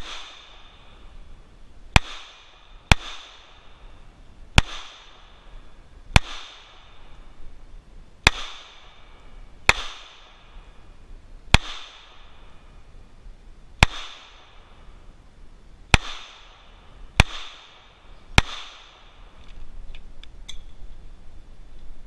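Twelve shots from a Springfield .45 pistol, fired singly one to two seconds apart. After each shot a thin crash cymbal rings and fades, struck by the bullets. A few small metallic clicks of the pistol being handled near the end.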